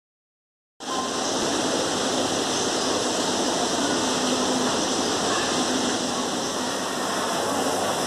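Steady rushing noise, even and unbroken, that cuts in abruptly about a second in.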